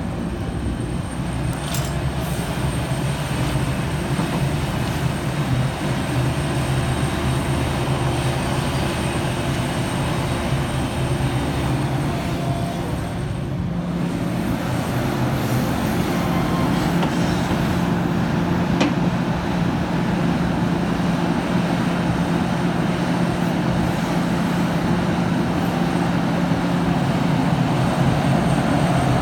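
Large Liebherr R 974 crawler excavator's diesel engine running under hydraulic load as it digs, swings and dumps earth, a steady drone whose pitch shifts about halfway through. A couple of sharp clanks are heard.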